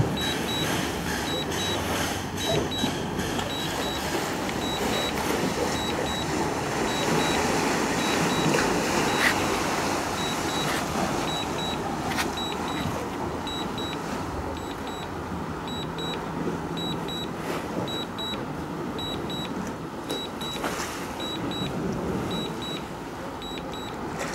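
A DJI Mavic Air 2 remote controller beeping during automatic Return-to-Home: a faint high double beep repeating about once a second over a steady rushing outdoor background noise.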